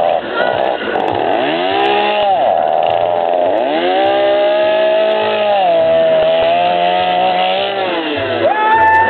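A small engine revving up and down repeatedly, its pitch rising and falling over a second or two at a time.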